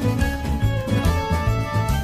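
Background music with a steady beat under a pitched melody.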